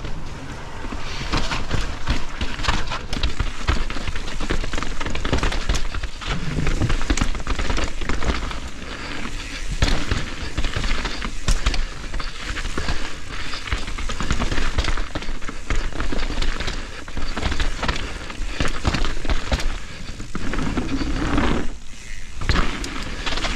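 Mountain bike riding fast down a rough trail: the tyres crackle over dirt, roots and rocks, with a dense, continuous clatter of knocks and rattles from the bike.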